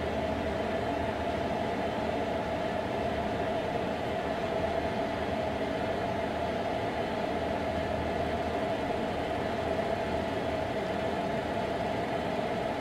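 Steady mechanical drone with a constant mid-pitched hum, unchanging throughout.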